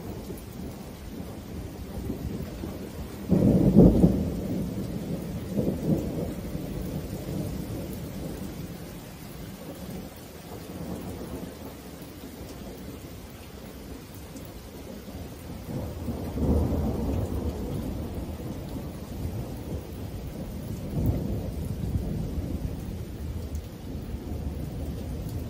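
Thunder from lightning strikes about 10 km away: a sudden loud clap that rolls on about three and a half seconds in, a second, weaker peak a couple of seconds later, and further long low rolls of thunder later on. Steady rain runs underneath.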